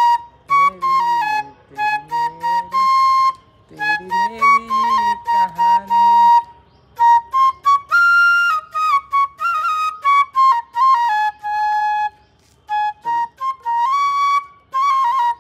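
Bamboo flute (bansuri) playing a melody in short phrases of quick, stepping notes with brief pauses between them. A lower, voice-like hum runs under the flute for the first six seconds or so.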